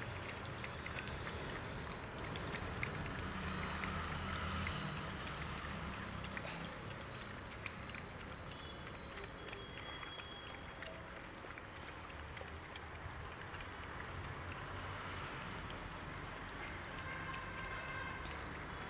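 Puppies lapping and slurping milk from feeding bowls, a run of small wet clicks, over a low rumble of wind on the microphone.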